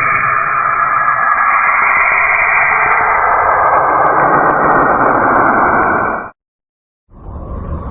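NASA space sound recording: a dense, rushing radio-like hiss with a faint whine in it, which cuts off abruptly about six seconds in. After a brief silence, a lower, rumbling noise begins.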